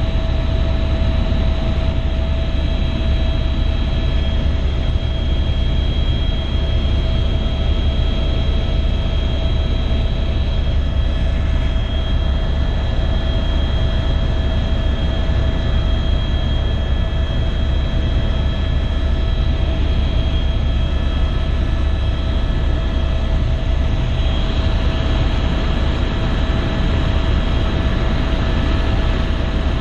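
Helicopter cabin noise in steady flight: a heavy, even low rumble from the rotor and engine, with several steady whining tones on top.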